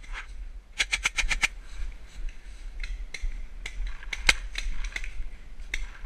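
Paintball markers firing: a rapid string of about six shots about a second in, then scattered single shots with sharp pops.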